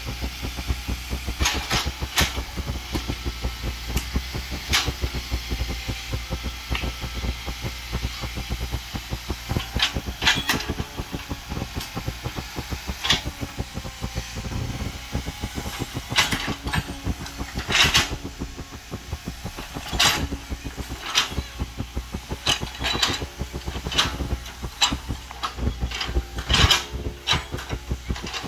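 Caterpillar E120B excavator's diesel engine running with a fast low throb while the arm and bucket dig, with a faint whine that rises and falls as it works. Sharp knocks and clanks come again and again, more often in the second half.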